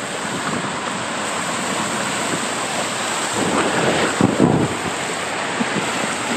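Steady rush of water and wind on the microphone while riding down a tube water slide, with louder low swooshes about four seconds in.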